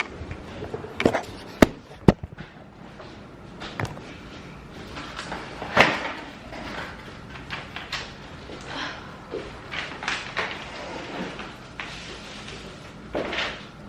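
Scattered knocks, bumps and clatter of household handling. The sharpest knocks come about one and a half to two seconds in, with a louder one near the middle.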